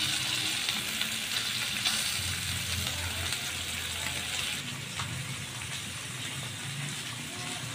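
Pork belly and chicken sizzling on a mesh-lined electric grill pan: a steady hiss of fat frying, which eases a little about halfway through.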